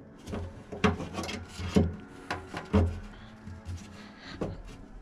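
Handling noise of a wire being fished through a hole in a car's quarter-panel sheet metal: scattered rubbing and scraping with several sharp knocks and taps against the metal.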